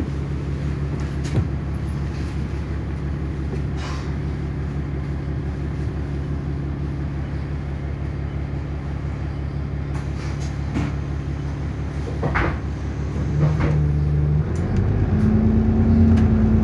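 Bus engine heard from inside the passenger saloon, running at a steady low note with a few short rattles and knocks, then getting louder and higher in pitch as the bus accelerates about fourteen seconds in.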